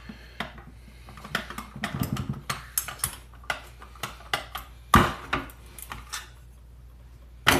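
Scattered metal clicks and knocks of an SKS rifle's fixed magazine being rocked into place in the action, with a louder knock about five seconds in and another near the end.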